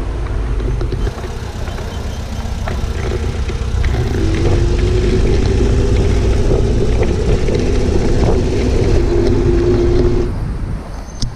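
Street traffic: a motor vehicle's engine running over a heavy low rumble. Its pitch rises slightly from about four seconds in, and the engine note stops shortly before the end.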